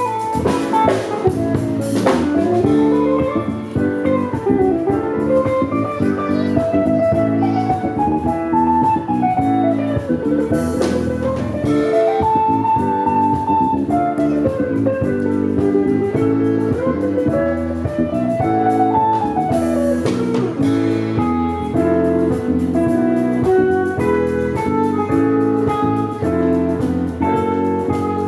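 Instrumental band music: a melody instrument plays quick runs of notes that climb and fall over and over, over a steady drum-kit groove.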